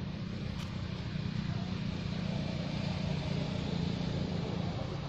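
A steady low engine hum with an even hiss above it, swelling slightly midway.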